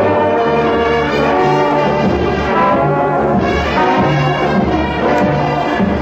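Brass-led orchestral music playing a short bridge between scenes of a radio comedy.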